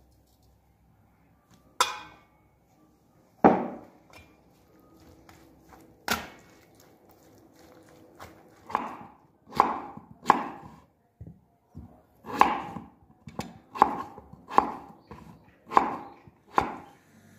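Kitchen knife cutting peeled potatoes on a wooden chopping board: a run of sharp knocks, about one a second, in the second half. A few scattered knocks come earlier.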